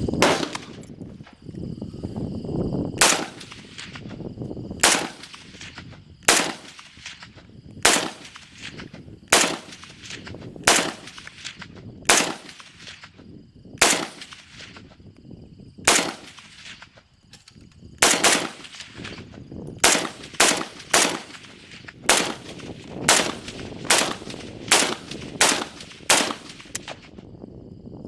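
FAL-pattern 7.62×51 mm (.308) semi-automatic rifle fired shot after shot, sharp cracks with a short echo. The shots come about one every second and a half at first, then quicken to about two a second in the last third.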